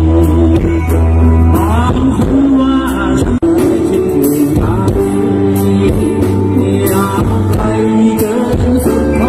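Live rock band playing a song with a man singing over electric guitar, bass guitar and keyboard, the sound cutting out for an instant about three and a half seconds in.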